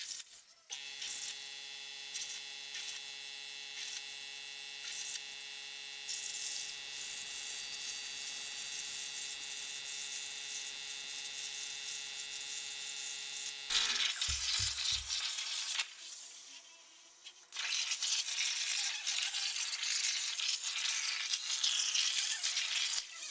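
CNC plasma cutter torch cutting steel plate: a steady electrical hum and whine, joined by a high hiss about six seconds in. Just past halfway the hum cuts off abruptly, leaving a louder, rougher hiss that dips briefly and then carries on.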